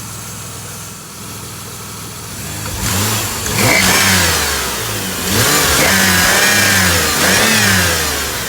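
Pontiac G6 engine idling under the open hood, then revved in several blips from about three seconds in. A high-pitched whine rises and falls with the revs. The squeal the owner is chasing has survived a new belt and new idler and tensioner pulleys.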